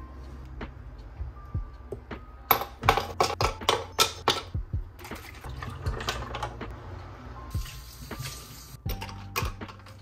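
Breakfast being put together on a kitchen counter: a quick run of clicks and clinks about two and a half seconds in, then a canned drink being poured into a glass cup, with more clinks near the end.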